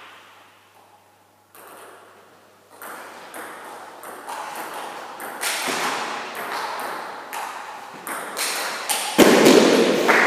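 Table tennis rally: the ball clicks off paddles and table about twice a second. Near the end the point ends and a loud burst of applause and cheering starts.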